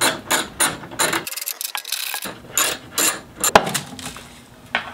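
Socket ratchet clicking in quick repeated strokes on a 14 mm end link bolt of the sway bar, with one sharper metallic clack about three and a half seconds in.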